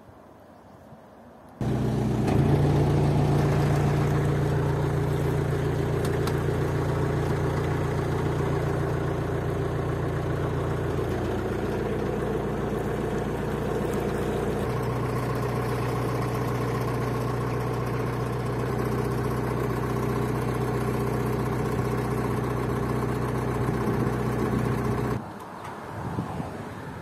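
Narrowboat engine running steadily under way, cutting in abruptly about a second and a half in. Its pitch steps down twice, most clearly about halfway through as the throttle lever is eased back, and it cuts off a couple of seconds before the end.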